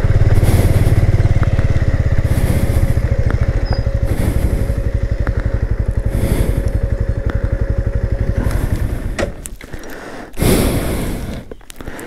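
Motorcycle engine idling with a steady, even beat, then stopping about nine seconds in; a brief rush of noise follows near the end.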